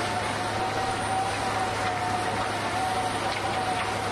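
Heavy drilling rig running: a steady machine drone with an even, slightly wavering whine.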